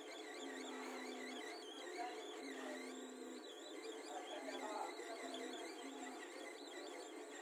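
Faint background music: a warbling, wavering high melody over a repeated low note.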